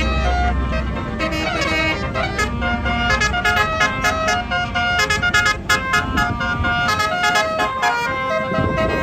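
A tour bus's 'telolet basuri' multi-tone horn set playing a quick melody of stepped notes over its engine rumble. The rumble fades about a second in while the horn tune carries on.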